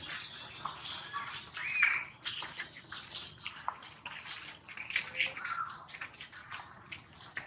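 Young macaques scuffling and wrestling in dry leaves: crackly rustling and scraping with a few short, high squeaks, the loudest an arching squeak about two seconds in.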